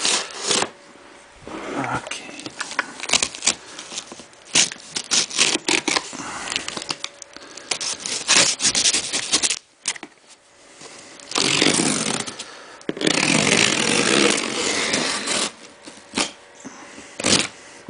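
A cardboard shipping box being opened and unpacked: cardboard scraping and rustling with scattered knocks, and two longer, louder stretches of scraping about two-thirds of the way in.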